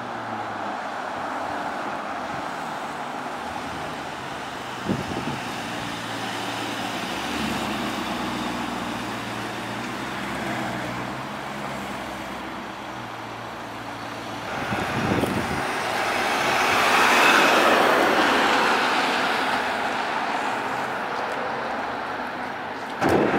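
Cars driving on a town street: steady engine and road noise, with one car growing louder as it passes in the middle and then fading.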